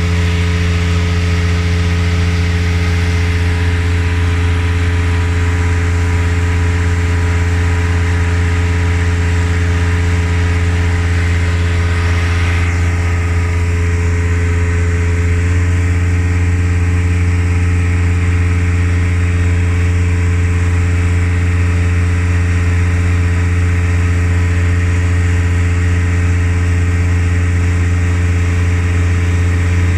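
An engine running steadily, a constant droning hum with a slight change in tone about halfway through.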